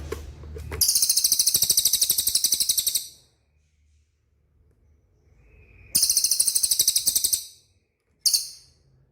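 Cililin bird singing its fast, high-pitched rattling trill in three bursts: two lasting about two seconds each and a short one near the end.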